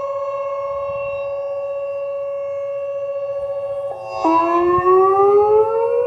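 Thunderbolt 1000 and Whelen 2810 sirens sounding the steady alert signal. One steady siren tone holds; about four seconds in, a second tone enters low and winds up in pitch over about two seconds to join it, and the sound gets louder.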